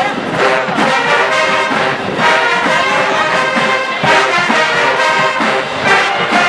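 Marching band playing a loud, brass-heavy tune, the horns holding sustained chords.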